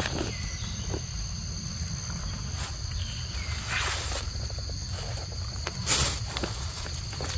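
Forest insects drone steadily on two high, even pitches over a low rumble. Short rustles and scuffs break in, the loudest about four and six seconds in.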